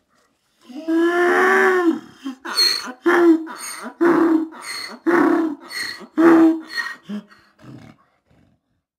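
A farm animal calling: one long pitched call, then a run of shorter, rhythmic calls about one a second, tailing off into a few short grunts.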